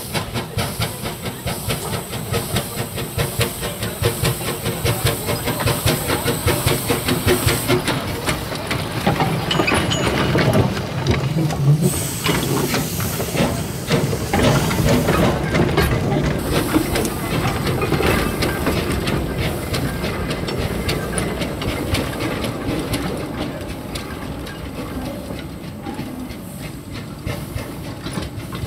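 The 1924 Wee Georgie Wood steam locomotive running past at low speed: rhythmic exhaust chuffs over a steady hiss of steam, with the wheels clicking over the rail joints. It grows louder as it passes and fades over the last few seconds as it moves away.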